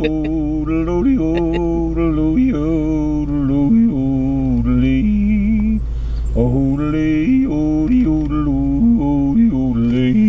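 A person yodeling to cattle: long held notes stepping up and down in two phrases, with a short break for breath about six seconds in.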